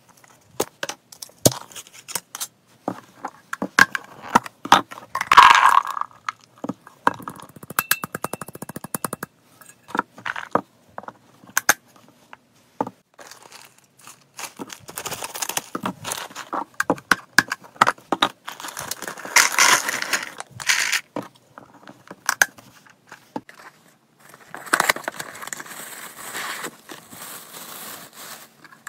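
Hands handling pet-snack packaging: repeated taps and clicks on a plastic-lidded can and on packets, with plastic bags crinkling and rustling in several stretches. A quick run of ticks comes about eight seconds in.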